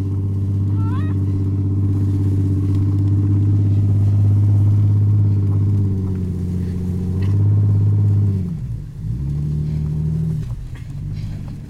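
Jeep engine running steadily under load as it tows a snow tube. About eight seconds in, the revs drop sharply and the engine settles to a lower, quieter note.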